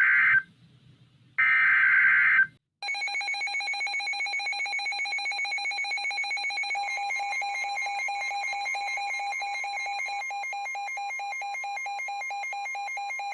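NOAA Weather Radio emergency alert sequence. First come two short screeching bursts of the SAME digital alert header, about a second apart. Then a rapid pulsing alarm beep starts, and about four seconds later the steady 1050 Hz weather alert tone joins it.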